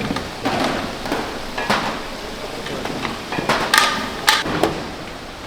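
Kitchen clatter: irregular knocks and bangs of kitchenware being handled, with one ringing metallic clang about four seconds in.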